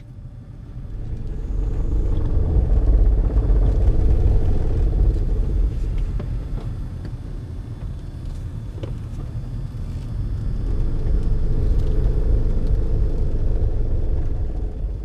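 2004 Honda CR-V on tight turns, with a low rumbling groan from the rear differential that swells twice and fades at the end: the rear-differential shudder on tight cornering that Honda fixes with a drain and refill of the differential fluid.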